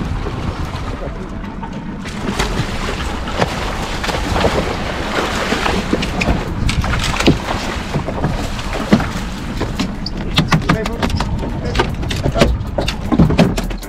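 Wind on the microphone over water sloshing around a small outboard fishing boat, with a run of sharp knocks and splashes in the last few seconds.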